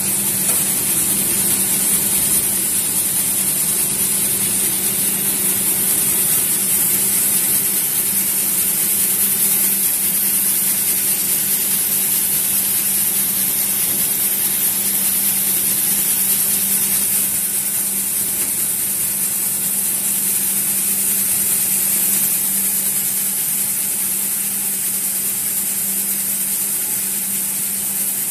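A 5XZ-8 gravity separator running while sorting shelled corn: a steady hiss of kernels shaking and sliding across its vibrating, air-blown deck, over a steady low hum.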